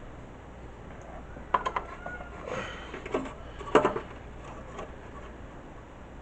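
Clicks and knocks of plastic and metal computer parts being handled inside a desktop PC case while a drive cable is fitted; three sharp ones stand out, the loudest near the middle.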